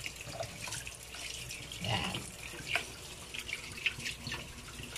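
Tap water running into a bowl of fish in a stainless steel sink, with splashing as the fish are rinsed by hand. A few sharper clicks and splashes stand out against the steady flow.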